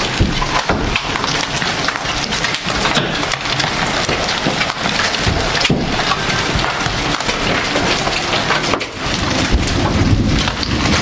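Softball-sized hail and heavy rain pounding down: a loud, dense, continuous clatter of hard individual hailstone impacts over the hiss of the downpour.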